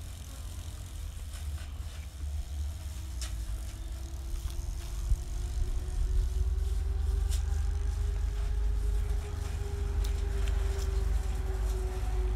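A motor's hum over a deep rumble, growing louder about halfway through, its pitch rising slowly and then levelling off. Scattered sharp clicks and crunches of someone chewing crispy deep-fried fish.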